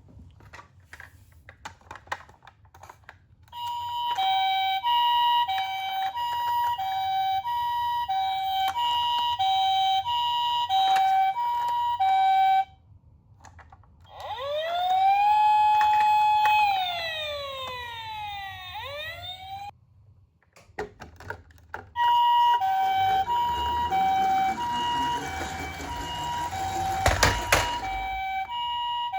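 Toy ambulance minicar's electronic siren: a two-tone hi-lo tone alternating about once a second, then a single wail that rises, holds and falls, then the hi-lo tone again. A few clicks come before the siren starts, and near the end a rattling noise runs under the siren with a sharp knock.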